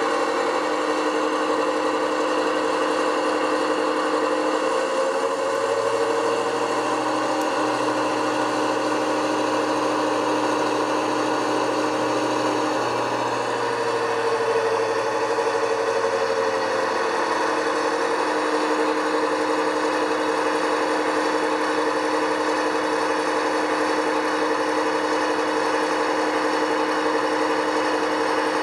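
Model Class 55 Deltic's DCC sound decoder playing a diesel engine idling through the locomotive's own loudspeaker, steady with small shifts in the engine note, the speaker freshly fixed so it no longer vibrates.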